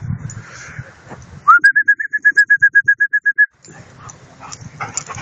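A trilled whistle: a short rising start, then rapid even pulses, about nine a second, held on one steady pitch for about two seconds.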